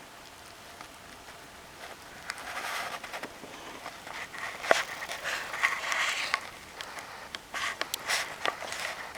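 Wood fire crackling, with hissing and scattered sharp pops. It is faint at first, grows busier after about two seconds, and the loudest pop comes about halfway through.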